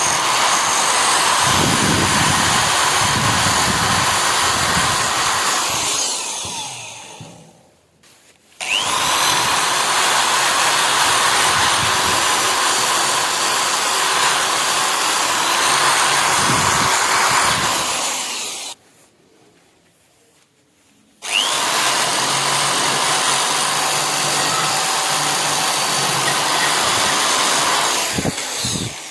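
Handheld rotary power tool running against the metal of the rusty pliers. It winds down and stops about seven seconds in and starts again a second later, then winds down again around eighteen seconds. After a pause of about three seconds it starts up once more.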